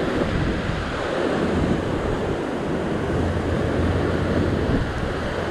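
Heavy ocean swell surging and breaking into white water below the rocks, a steady low rushing wash, with wind buffeting the microphone.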